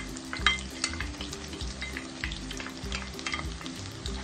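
Minced garlic frying in hot oil in a nonstick wok: a steady sizzle with crackling pops, and a wooden spatula stirring it. The garlic has just gone into the oil, the first step of the sauté. The sharpest pops come at the start and about half a second in.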